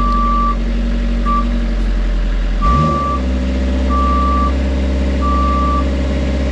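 An aerial work lift's motion alarm beeping with one steady tone about every 1.3 seconds over its running engine, whose note shifts about two and a half seconds in as the machine moves.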